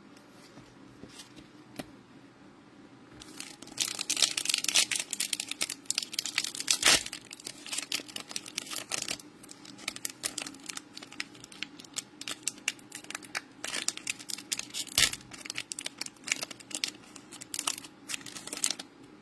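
Foil wrapper of a Panini Prizm football card pack being torn open and crinkled by hand. It starts about three seconds in with the loudest tearing, then goes on in crackling bursts of crinkling until near the end.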